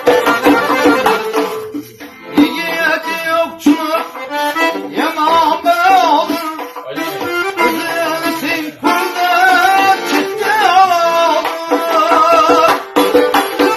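Khorezmian folk song performed live: a tar strummed rapidly in a dense, repeating pattern, with a man's voice singing long, ornamented, wavering lines over it from a couple of seconds in.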